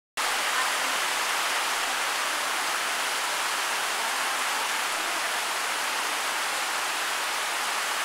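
Heavy tropical-storm downpour: rain falling in a steady, even hiss.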